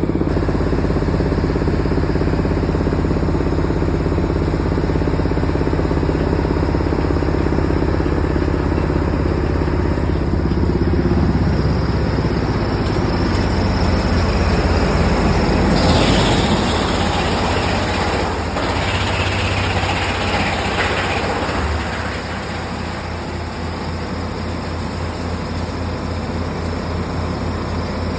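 Diesel engine of an industrial drum wood chipper running steadily. Its note shifts partway through, and for several seconds past the middle a louder rushing, grinding noise rises over it as wood is fed through and chipped.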